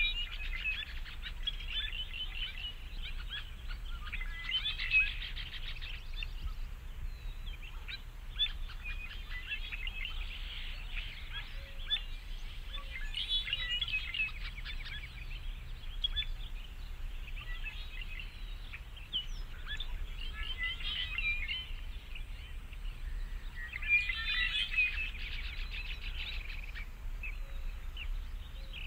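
Several birds chirping and singing: many short calls overlap throughout, over a steady low rumble.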